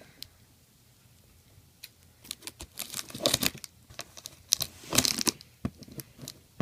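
Packing tape being ripped from a cardboard box and the flaps handled. Several short tearing, crinkling bursts with sharp clicks start about two seconds in.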